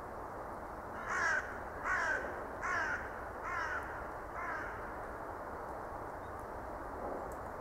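A crow cawing five times in a row, each call fainter than the one before.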